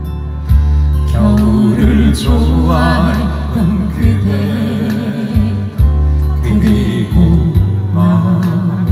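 Live acoustic guitar and violin duo playing a slow ballad, the violin carrying a melody with vibrato over the guitar, with some singing.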